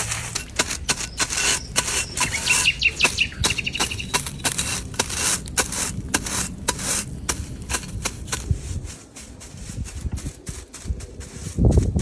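A rapid, irregular series of sharp knocks or taps, several a second, like repeated tool strikes. A bird chirps briefly about three seconds in.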